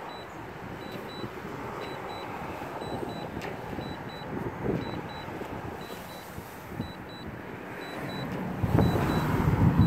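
Steady street traffic noise with faint short high beeps repeating every half second or so from the drone's remote controller. Near the end a much louder low rumble sets in.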